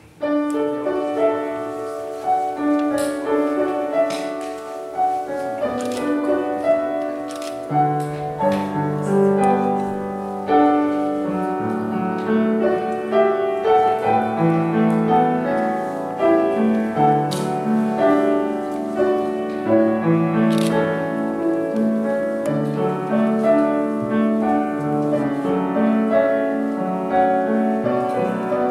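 Solo upright piano starting a piece: a melody in the middle register, with lower bass notes joining about eight seconds in.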